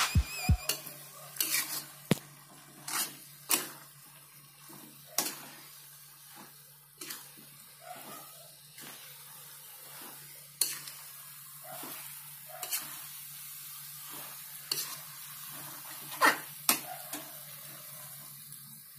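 Metal spatula scraping and clanking against an aluminium wok as noodles and greens are stir-fried, in irregular strokes with a few louder knocks, over a faint sizzle. A steady low hum runs underneath.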